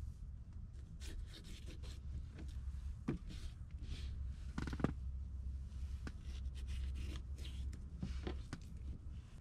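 Chef's knife slicing bell peppers on a plastic cutting board: irregular cuts and taps of the blade on the board, with the pieces being moved about by hand, one louder knock about five seconds in. A steady low rumble runs underneath.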